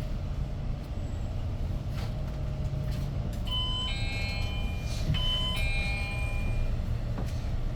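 Inside a Hyundai New Super Aerocity city bus under way, its CNG engine and road noise make a steady low drone. Halfway through, a two-note electronic ding-dong chime sounds twice, about a second and a half apart.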